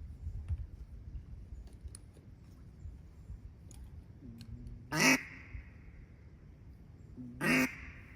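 Two loud, short duck quacks about two and a half seconds apart, each trailing off with an echo.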